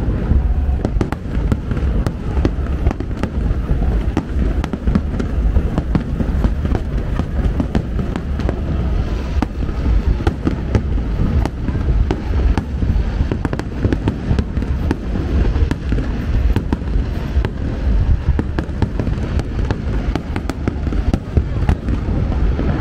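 Aerial fireworks display going off in a rapid, continuous barrage: deep booming bursts overlapping with many sharp crackles and pops.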